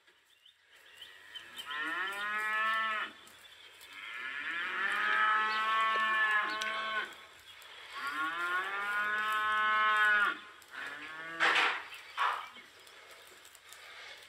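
Cattle mooing: three long, drawn-out moos with a short pause between each, the middle one the longest. Two short, sharper sounds follow near the end.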